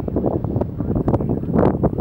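Wind buffeting the camera's microphone in irregular gusts, a rough, rumbling rush that surges and drops.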